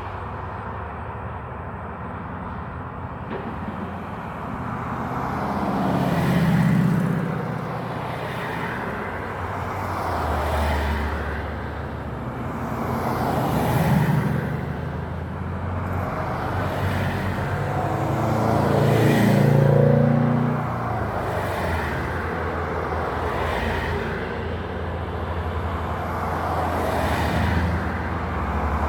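Road traffic: several cars and trucks passing one after another, each a swell of tyre and engine noise that rises and fades, with the loudest pass about two-thirds of the way through.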